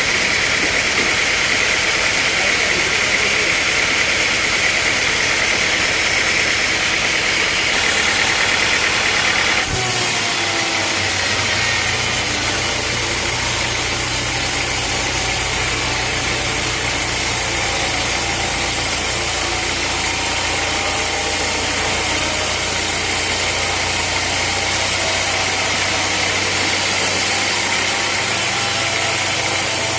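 Sawmill machinery running: an engine drones steadily. About ten seconds in the sound changes abruptly: a higher whining band stops and a steadier, lower drone carries on.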